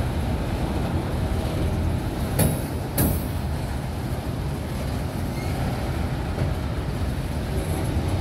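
Freight cars rolling slowly over a steel girder overpass: a steady low rumble of wheels on rail, with two sharp metallic clanks about half a second apart a couple of seconds in.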